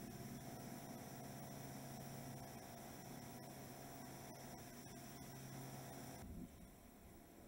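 Faint steady electrical hum under a light hiss, dropping away suddenly about six seconds in and leaving only the hiss.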